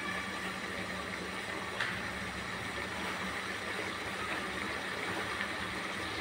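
Thin tomato-and-onion mushroom gravy boiling steadily in a kadai, a continuous bubbling noise with a low steady hum underneath and a small click about two seconds in.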